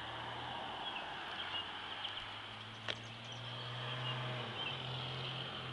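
Outdoor summer ambience: a steady high insect drone with a few short bird chirps over a low steady hum, and a single click about three seconds in.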